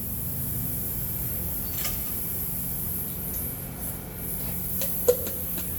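Steady low hum with a few light clicks, one sharper click near the end.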